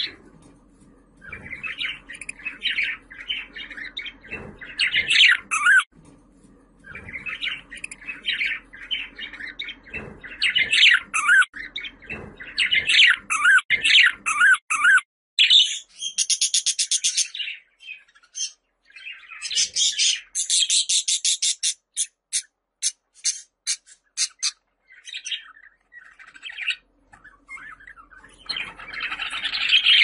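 Budgerigar warbling and chattering, a busy stream of short chirps and squawks. Midway it switches to runs of fast clicking notes with brief pauses, then warbles again near the end.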